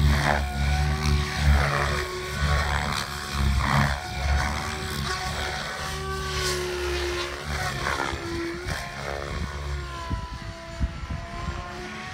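Radio-controlled model helicopter flying overhead. Its rotor and motor sound swells and fades, and its whine slides up and down in pitch as it manoeuvres.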